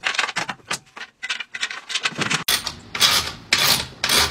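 A bed frame being taken apart, its wooden slats and metal frame parts knocking and clattering: irregular knocks and clicks at first, then from about halfway a run of scraping strokes about twice a second.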